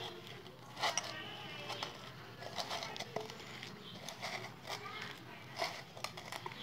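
A hand squishing and kneading thick gram-flour batter with chopped coriander leaves and onion in a steel bowl: soft wet squelches and scattered clicks, the sharpest about a second in and near the end. Faint voices can be heard underneath.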